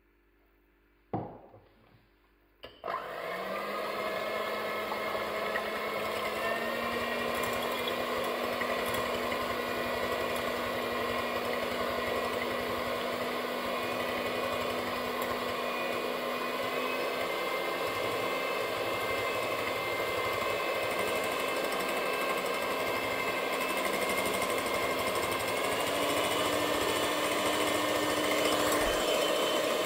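Moulinex electric hand mixer beating egg whites and sugar for meringue in a glass bowl. A brief knock about a second in, then the motor starts a few seconds in and runs steadily, its pitch stepping up near the end.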